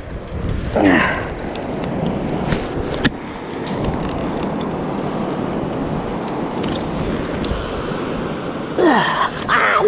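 Steady rush of surf breaking on a sandy beach, with a few sharp handling clicks. Brief voice sounds come just after the start and again near the end.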